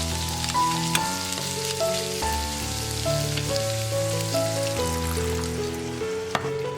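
Food sizzling as it stir-fries in a pan, with a few sharp clicks, the loudest about six seconds in, over background music.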